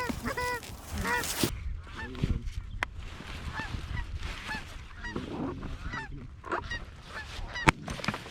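Goose honking: a fast run of loud, short honks in the first second or so, then fainter scattered honks, with a couple of sharp clicks.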